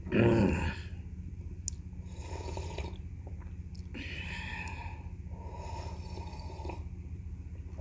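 A person slurping sour tamarind soup (goat-feet sinigang broth) from a small glass cup: a short loud burst from the mouth at the start, then several noisy slurping sips a second or two apart. A steady low hum runs underneath.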